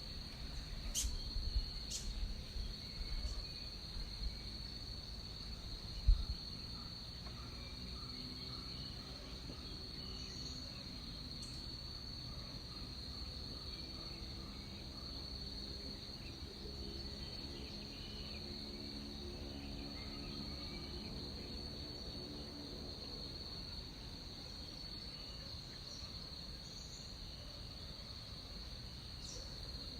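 Rainforest insects keeping up a steady high-pitched drone, with a few short higher chirps above it. Several low thumps come in the first few seconds, the loudest about six seconds in.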